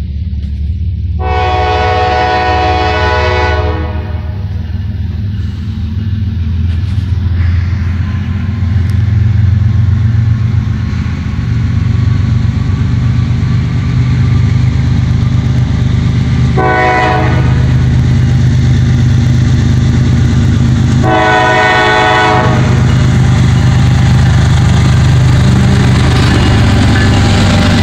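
A CSX freight locomotive's multi-tone air horn sounds three blasts, warning of its approach to a grade crossing: a long one about a second in, a short one past the middle, and another a few seconds later. Under them the low rumble of the diesel locomotive grows louder as the train nears and reaches the crossing.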